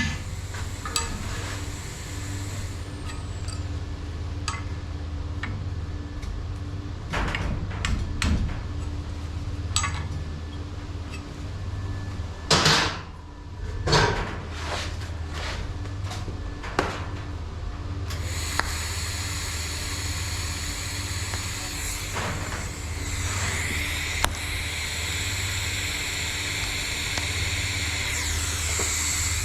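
Pipe-fitting work sounds: a steady low machine hum under scattered metallic knocks and clanks, two of them louder about halfway through. About two thirds of the way in, a steady high whine with hiss starts and keeps going.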